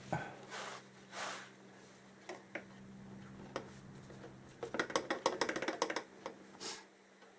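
Hand work with tools and a rag at the motorcycle's shaft drive: a few soft swishes of wiping, scattered knocks, and a quick run of sharp metallic clicks lasting just over a second, past the middle. A low steady hum sits underneath.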